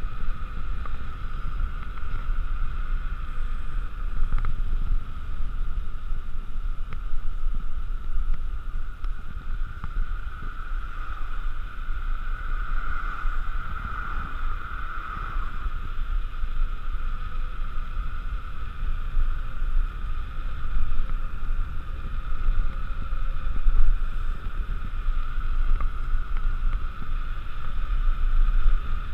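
Wind rushing over the camera microphone and road noise from a mountain bike rolling fast down asphalt: a low, fluttering rumble with a steady hum over it that swells briefly about halfway through.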